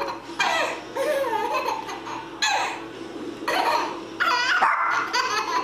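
A baby laughing hard in a string of short fits, about six of them roughly a second apart.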